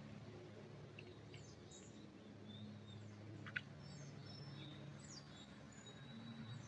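Faint, scattered short chirps and calls of forest songbirds over a low steady hum, with one brief sharp sound about halfway through standing out as the loudest moment.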